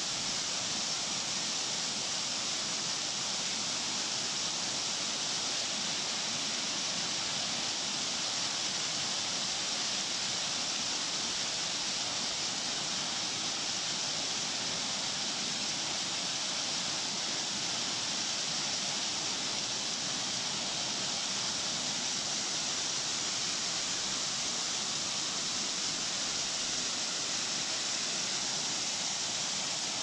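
Two-tier waterfall pouring over rock ledges, a steady rushing hiss that never changes.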